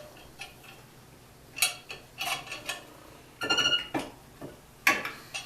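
Metal brake parts and hand tools clinking and knocking together as a disc-brake caliper and its new pads are handled: a handful of separate clinks, one ringing briefly about three and a half seconds in, and a sharp knock near the end.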